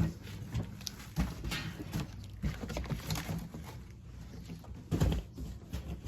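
Scattered clicks, knocks and rattles of parts being handled and pulled out during disassembly of a pellet grill, with a louder knock about a second in and another near the end.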